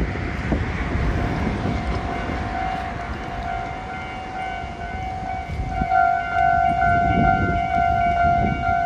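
Railway level crossing warning signal ringing, a steady electronic tone that comes in about two and a half seconds in and grows louder around six seconds, over a low rumble.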